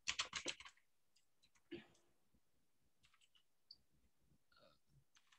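A quick run of computer keyboard keystrokes, typing a layer name, then a single click a little later and a few faint scattered ticks.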